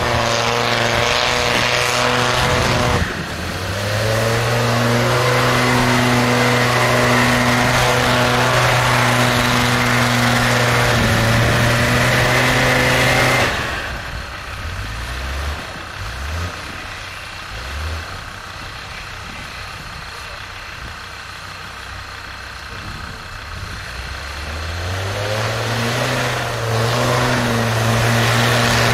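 Land Rover Discovery TD5's five-cylinder turbodiesel held at high revs as it churns through deep snow, with a brief dip about three seconds in. About halfway through the revs drop back to idle, then climb and hold high again near the end.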